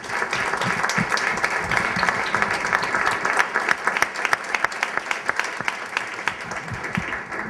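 Audience applauding: many hands clapping at once in a dense, steady patter that thins out near the end.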